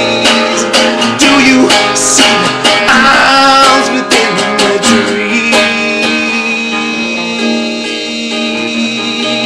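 Acoustic guitar strumming chords, the strums thinning out in the second half so that the chords ring on.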